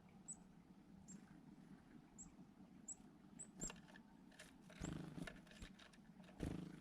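Faint, short, high-pitched chirps from a small animal, repeating about once a second, with a few soft knocks and rustles around the middle and near the end.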